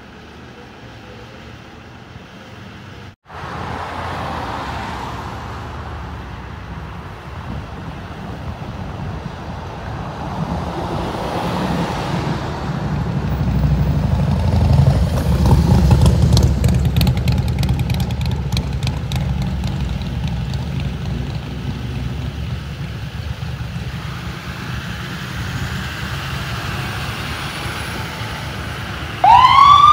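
Ambulance engine running as it pulls out of the station bay. The rumble grows louder, peaks about halfway through, then eases. Right at the end the siren starts, winding up in pitch, and it is the loudest sound.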